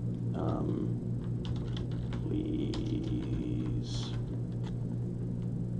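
Computer keyboard typing: scattered keystroke clicks as text is typed into a code editor, over a steady low electrical hum.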